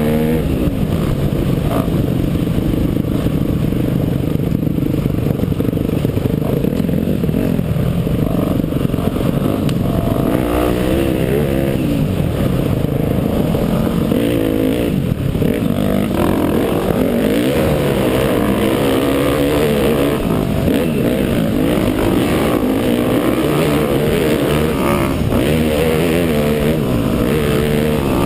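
Dirt bike engine under way on a trail, its revs rising and falling constantly, heard close up from a helmet-mounted camera.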